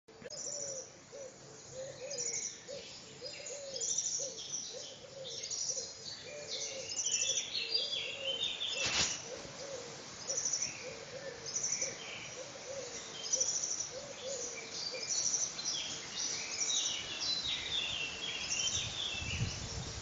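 Morning birdsong: several birds singing with high chirps and trills, over a low call repeated about once a second that stops a few seconds before the end. A single sharp click sounds about halfway through.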